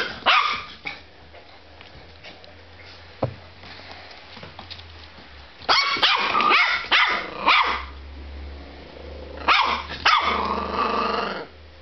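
Border terrier puppy barking and growling in play, in three bursts: at the start, around six seconds in, and near the end.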